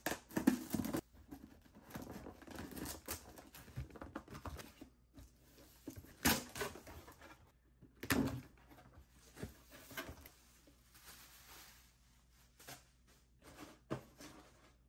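Cardboard shipping box being opened by hand: a knife slitting the packing tape, then tape peeling and tearing and the cardboard flaps scraping and rustling, in irregular bursts with the loudest near the start and around six and eight seconds in.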